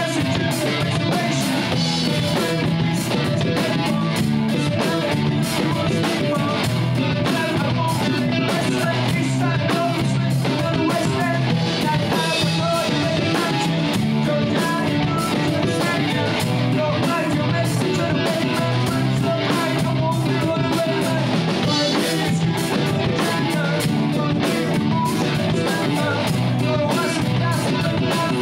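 A live rock band playing: amplified electric guitars over a drum kit keeping a steady beat.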